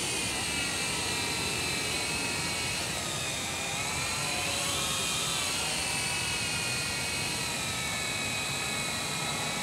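Small quadcopter drone's propellers whining steadily in flight, several high pitches together that dip and then rise again about halfway through.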